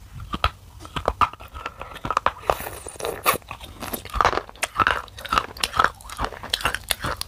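Biting and chewing a stick of black shale clay, close-miked: many sharp, dry crunches, several a second, as pieces snap off and are ground between the teeth.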